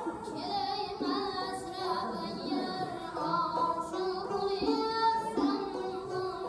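Live traditional Uzbek music: a high, young-sounding singing voice with a wavering vibrato over a doira frame drum and string accompaniment.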